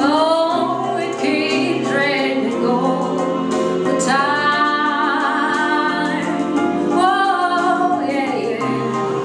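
A woman singing a slow song in long held phrases, several notes sliding up into pitch, over a sustained instrumental accompaniment.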